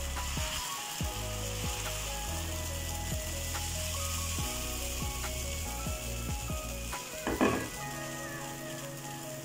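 Dosa batter sizzling on a hot iron tawa as a ladle spreads it in widening circles, with a brief louder scrape about seven seconds in. A simple background tune plays underneath.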